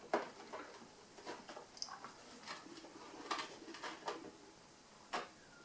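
Faint, scattered light taps and clicks of a small clear plastic tub being handled and its lid fitted, about seven in all.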